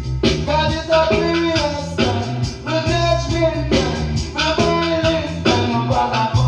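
Reggae song playing: a deep bass line under a singing voice, with a steady ticking beat on top.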